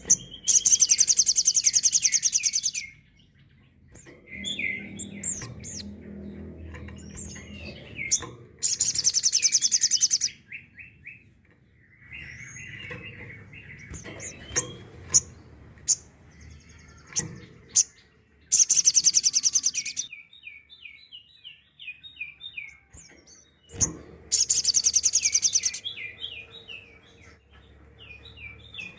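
Sogok ontong (little spiderhunter) singing its 'tembakan' song: four loud bursts of very rapid, high trilled notes about two seconds each, separated by runs of short, quick downslurred chirps.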